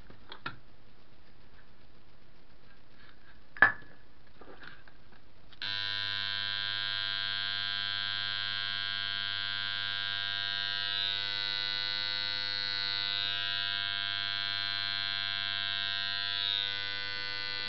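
A sharp click, then about five and a half seconds in a rewound 50 Hz mains transformer starts humming steadily once energised. It is on a no-load test through a series test lamp and draws only about 8 watts.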